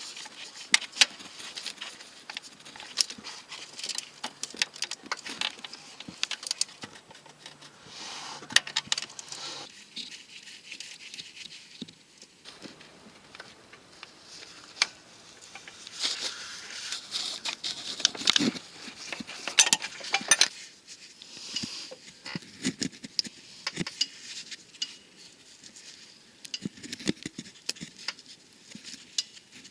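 Hand tools and small metal parts clicking and clinking against metal, irregular and scattered throughout, with a few louder knocks in the second half, as work goes on at the car's starter motor wiring.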